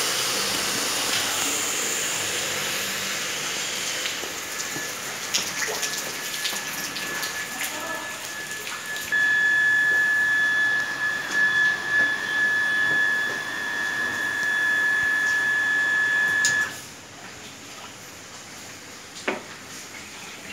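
Water rushing through a filter system, with scattered clicks. About 9 seconds in, a loud steady high-pitched whine starts over it; it stops suddenly about 17 seconds in, leaving a quieter rush.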